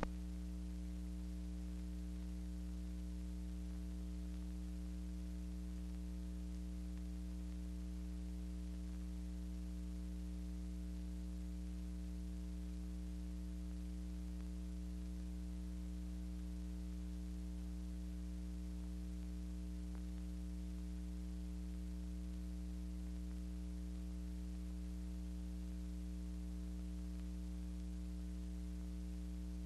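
Steady electrical mains hum with several overtones and a faint hiss underneath.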